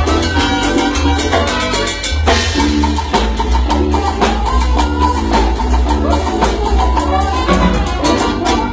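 Salsa-style band music: a percussion-heavy passage with drum kit, strong bass and busy rhythmic strokes.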